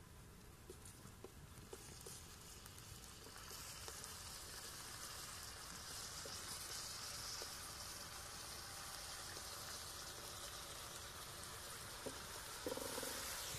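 Chopped onion sizzling as it fries in a pan over a wood fire, a faint, even hiss that grows louder a few seconds in as pieces of tomato are cut into the pan. A few light clicks in the first couple of seconds.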